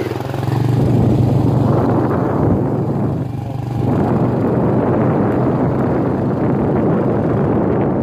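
Two-wheel hand tractor's single-cylinder diesel engine running steadily while under way, with a brief dip in loudness a little past three seconds in.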